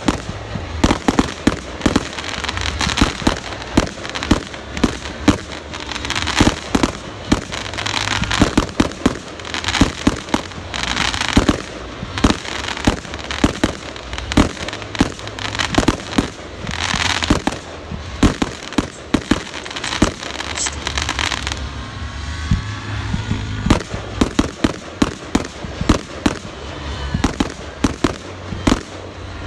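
Fireworks display: a dense, irregular run of bangs and pops from aerial shells and comets bursting, with longer hissing stretches in places.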